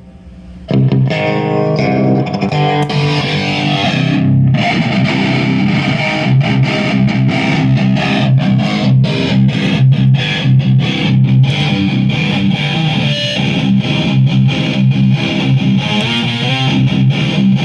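Electric guitar played through an overdriven Marshall amp and 4x12 cabinet. A note dies away, then riffing starts again just under a second in and carries on with a run of rhythmic low notes.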